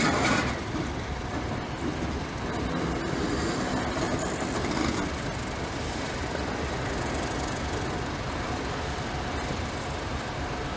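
A Class 31 diesel-electric locomotive running as it pulls away along the track, its English Electric V12 diesel engine a steady low rumble. The sound drops in level about half a second in, then holds steady as the locomotive recedes.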